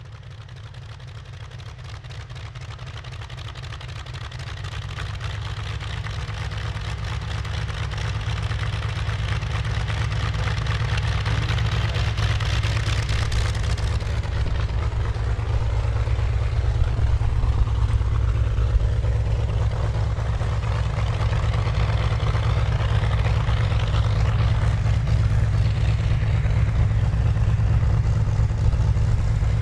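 Simulated radial-engine sound from the onboard sound system of an RC Pitts Model 12 biplane, mixed with propeller noise. It runs continuously with a heavy low rumble, getting steadily louder over the first half and then holding level.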